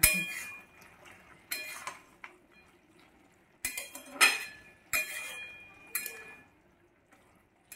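Metal spatula knocking and scraping against a metal kadai while stirring a vegetable curry. There are about six clanks, each with a short metallic ring, and they stop about a second before the end.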